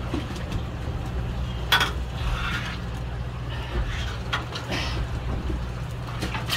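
Steady low hum of the fishing boat's engine machinery running, with a few brief sharper noises over it, the loudest about two seconds in.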